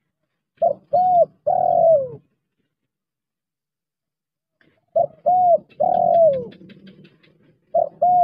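Spotted dove cooing: three phrases, each two short coos followed by a longer coo that falls away at the end, the third phrase cut off partway. Faint rapid ticking sounds under the second phrase.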